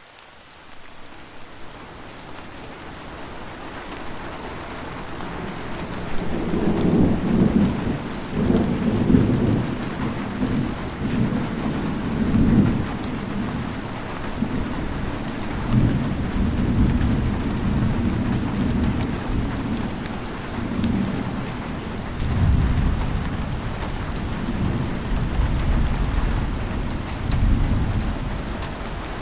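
Steady heavy rain with rolling rumbles of thunder that swell and fade again and again. It fades in over the first few seconds.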